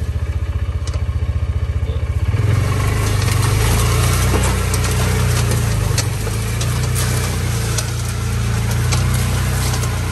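Vehicle engine running with a rapid, even pulsing for the first two and a half seconds or so, then a steadier, slightly louder drone. Scattered light knocks and rattles sound over it.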